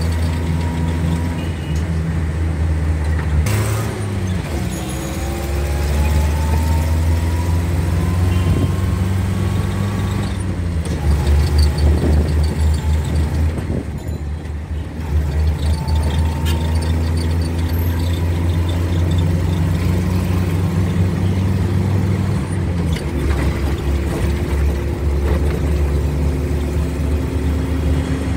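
Bus engine running under load, heard inside the driver's cab: its pitch climbs steadily as the bus pulls through the gears, dropping back at each gear change a few times, with a knock about three and a half seconds in.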